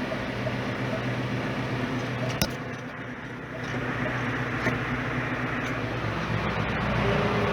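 Tractor engine running steadily. There is a click about two and a half seconds in, and the engine goes briefly quieter before it picks up again.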